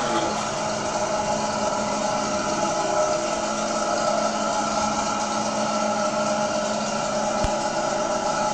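Dental treatment-room equipment running with a steady motor hum made of several held tones.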